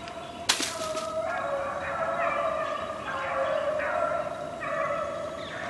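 Several hounds baying together in overlapping, drawn-out cries, the sound of a dog pack running a swamp rabbit's trail. A single sharp snap about half a second in.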